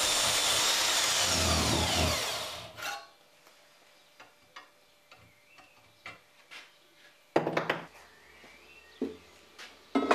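Handheld portable bandsaw cutting through a steel bar clamped in a vise, then winding down about two seconds in, its pitch falling away. A sharp metallic knock follows, then small clicks and a few louder knocks of steel being handled near the end.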